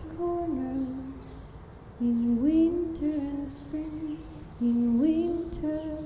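A woman singing wordless, long-held notes into a microphone, in two phrases that each open with an upward slide in pitch.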